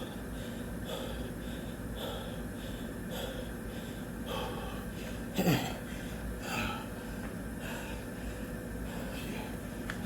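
A man breathing hard and fast, recovering from a set of burpees: a quick run of loud breaths in and out, with a loud voiced exhale falling in pitch about five and a half seconds in.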